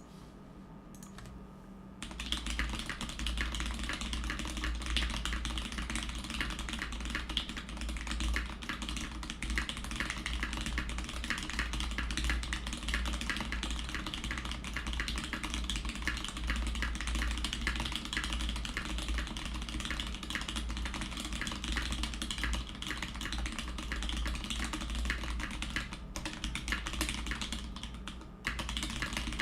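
Continuous fast typing on a TX-CP mechanical keyboard with lubed Zealios V2 67g tactile switches, a brass plate and PBT keycaps: a dense, even run of key clacks starting about two seconds in, with a short pause near the end.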